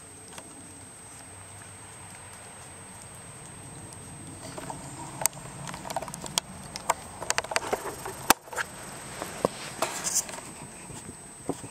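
Footsteps crunching on snow-dusted ground: a quiet stretch, then from about four seconds in a quick, irregular run of crunches and clicks.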